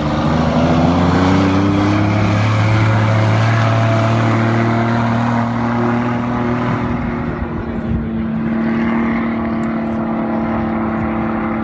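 Ford Dexta tractor with a swapped-in Chevrolet V6 engine at full throttle, its note rising in pitch over the first couple of seconds and then holding steady at high revs as the tractor speeds away across the ice.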